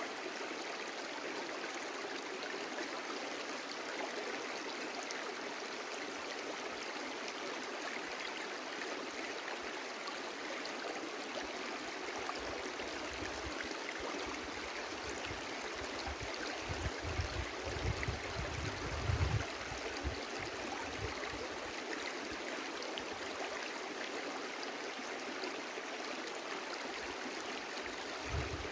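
Small stream running over stones, a steady rushing and gurgling of water. A low rumble comes and goes about halfway through and again near the end.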